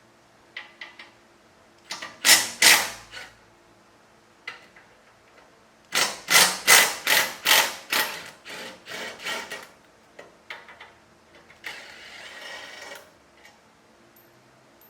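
Socket ratchet loosening the bolts at the exhaust flange: groups of sharp clicking strokes about two seconds in and again from about six seconds in, at roughly three to four strokes a second, then a short rasp near the end.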